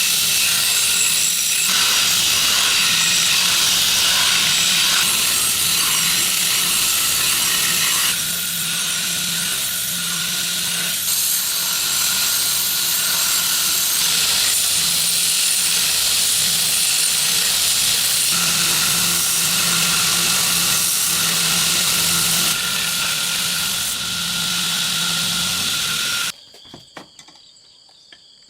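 A loud, steady hissing rush with a faint hum under it, which cuts off suddenly near the end. Crickets go on chirping after it stops.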